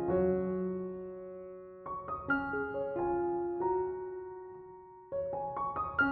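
Background piano music: slow, gentle phrases of struck notes and chords that ring on and fade between phrases.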